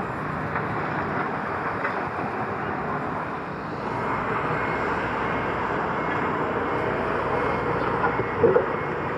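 Heavy construction machinery running steadily, a diesel excavator and dump truck working gravel, with a few sharp clanks near the end.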